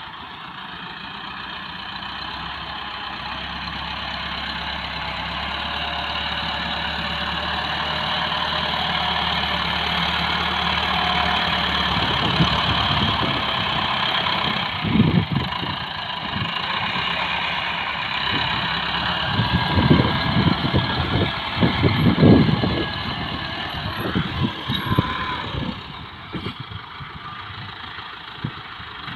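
Massey Ferguson diesel tractor engine running steadily while working a front blade through sand, growing louder over the first dozen seconds. About halfway through the low rumble turns uneven, with several louder surges before it eases near the end.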